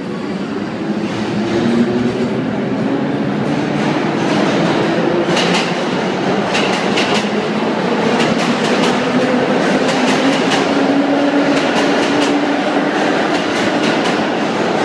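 Vintage 1930s subway train accelerating out of a station past the platform. Its motors whine, rising in pitch several times over a loud steady roar, and its wheels clack over rail joints from about five seconds in.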